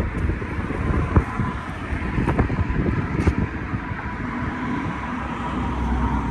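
City street sound: traffic going by, with wind buffeting the microphone and a few sharp clicks.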